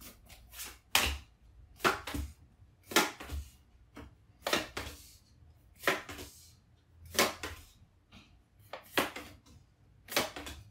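Tarot cards being dealt one at a time from the deck onto a hard tabletop. Each card lands with a sharp slap, roughly one a second.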